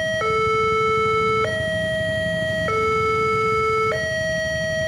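Railway level-crossing warning alarm sounding a steady two-tone signal, switching between a lower and a higher tone about every 1.2 seconds: the crossing is closed for an approaching train. A low rumble runs underneath.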